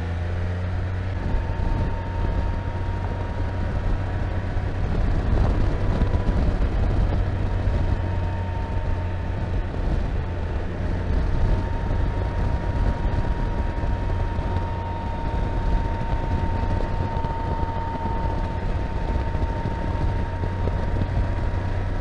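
2021 Can-Am Spyder F3T riding at highway speed, about 49–51 mph at 3,500 rpm, with engine, wind and road noise and a steady high hum over it. This is the hum that comes on around 49–50 mph, which the owner suspects comes from the drive belt pulleys.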